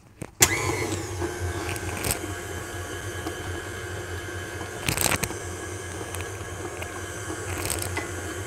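Electric stand mixer switched on about half a second in, then running steadily with a low hum and a higher whine as its flat beater works a thick cake batter in a glass bowl, with a couple of brief knocks along the way.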